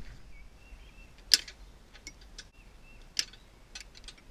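Sharp metal clicks and ticks from trailer hitch hardware being handled while a boat trailer is hooked up to a pickup: two louder clicks about two seconds apart, with fainter ticks between.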